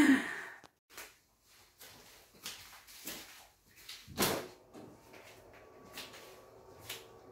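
A casement window being unlatched and swung open: a few light clicks and knocks, the loudest about four seconds in, followed by a faint steady hum.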